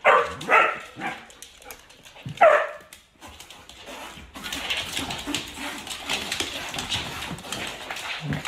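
A dog barks three times, short and loud, in the first few seconds, the last bark sliding down in pitch; after that only lower, steady background noise.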